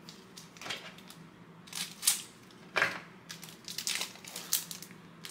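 Foil wrapper of a trading card pack crinkling and rustling in irregular bursts as the pack is handled and opened.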